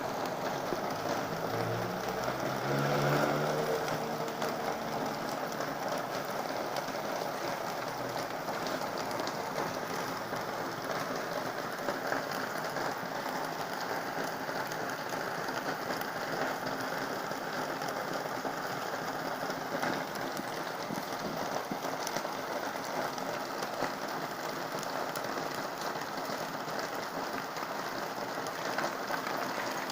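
Heavy rain falling steadily, pattering on surfaces. In the first few seconds a low tone rises briefly under it.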